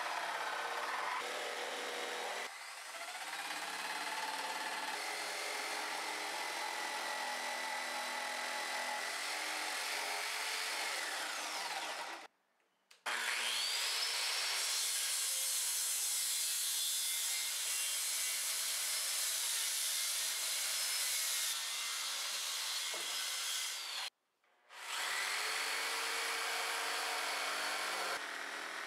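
Electric power saws cutting through thick 2x10 lumber: a jigsaw, then a circular saw, then the jigsaw again. Each motor's whine rises as it spins up and then holds over the cutting noise. The sound cuts off abruptly twice, about 12 and 24 seconds in.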